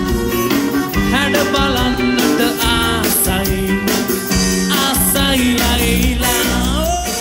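Live wedding band performing a Sinhala song: a male lead vocal over drum kit, bass and acoustic guitar, recorded on a phone.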